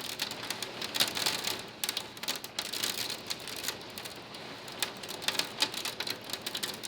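Hail and heavy rain pelting a pool screen enclosure: a dense, irregular clatter of sharp ticks over a steady rain hiss.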